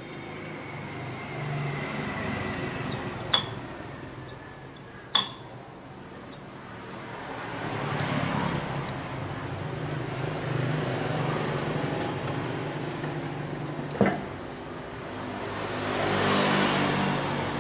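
Electric sewing machine running in spurts, its motor speeding up and slowing down three times, with a few sharp metallic clicks between runs.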